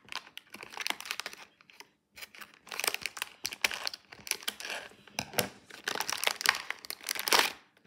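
Toy packaging being torn open and crinkled by hand: a long run of dense crackling and rustling, with a short pause about two seconds in and the busiest crackling in the second half.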